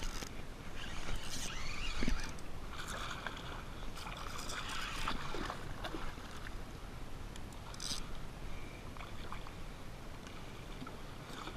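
Water sloshing and lapping against a kayak hull in ocean swell, a steady wash with a few brief sharp knocks.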